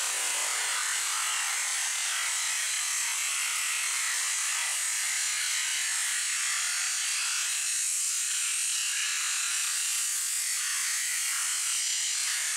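High-pressure washer jet spraying a raw whole chicken at close range: a steady, bright hiss of water blasting the meat and the wet concrete beneath.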